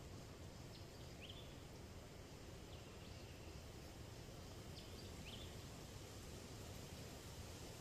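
Faint outdoor field ambience: a low, steady background hiss with a few short, faint bird chirps about a second in and again about five seconds in.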